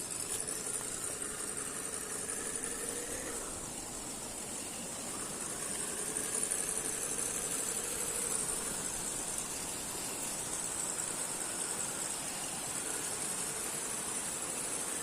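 Electric motor and gearbox of a 1:10 RGT EX86010-CJ RC crawler, whining as it drives, the pitch rising and falling with the throttle.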